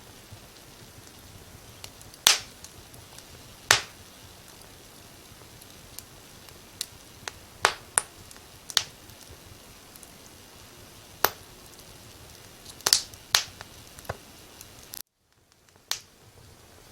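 Wood fire crackling: sharp, irregular pops and snaps over a steady soft hiss. The sound drops out almost completely for about a second, around fifteen seconds in.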